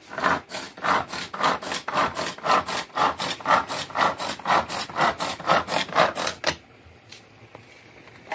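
Rhythmic rasping strokes, about three a second, for some six seconds, then stopping abruptly.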